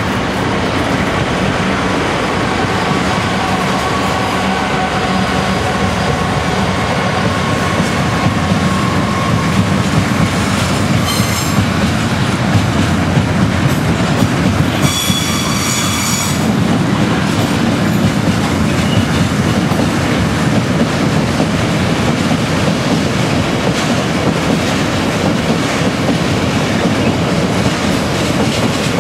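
Class 66 diesel freight locomotive passing with its two-stroke engine running, followed by a train of freight wagons rumbling and clattering over the rails. Brief high wheel squeals come twice near the middle.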